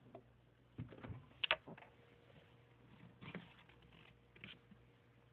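Faint steady low hum from a microwave oven, with a few light clicks and knocks scattered through it.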